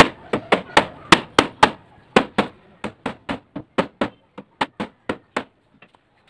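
Rubber mallet striking a wooden chair frame, knocking its joints together: a quick run of about twenty sharp knocks, three to four a second, growing softer in the second half and stopping shortly before the end.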